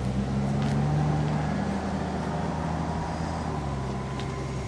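A vehicle engine idling, a steady low hum, with a few faint ticks over it.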